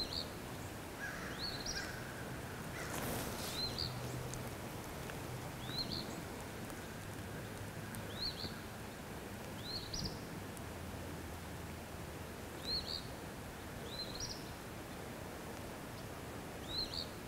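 A small bird repeating a short, rising chirp about ten times at irregular intervals of one to three seconds, over steady outdoor background hiss, with one brief burst of rustling noise about three seconds in.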